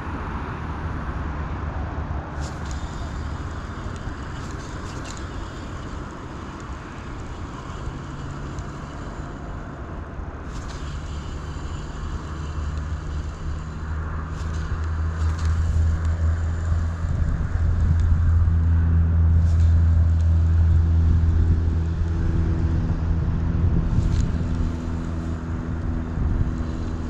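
A motor vehicle's engine running with a steady low hum, growing louder past the middle and easing off near the end.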